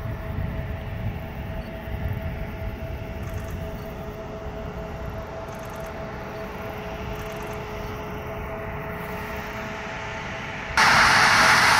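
Airbus A320neo taxiing with its engines at idle: a steady two-tone hum over a low rumble. About a second before the end it cuts suddenly to a much louder rushing noise.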